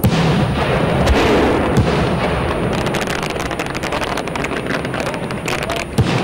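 Fireworks going off: a bang right at the start, then dense crackling of many small pops, and another bang near the end.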